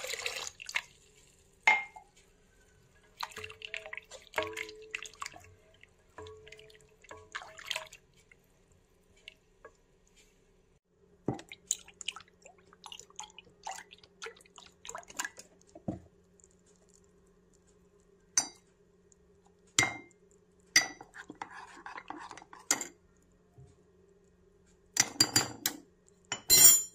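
Spoon and spatula clinking and scraping against a pot and a saucepan while milk is poured and stirred, with a quick burst of clatter near the end.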